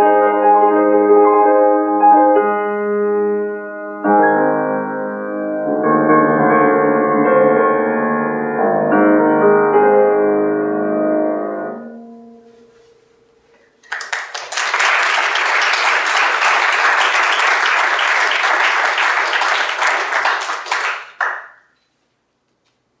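Grand piano playing the last bars of a classical piece, the final chord fading away about twelve seconds in. After a short pause, audience applause for about seven seconds, which stops abruptly.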